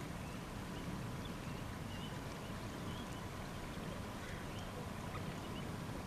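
Steady low outdoor rumble with a faint hum, and faint short high chirps from distant birds scattered through it.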